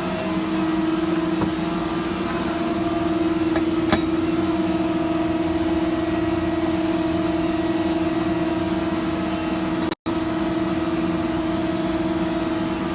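Steady hum of shop machinery at one constant pitch, with a single sharp click about four seconds in. The sound cuts out for an instant just after ten seconds.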